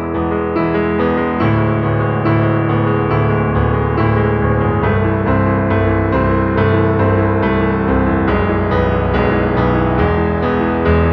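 Background music: piano or electric piano playing a steady run of notes over sustained bass chords.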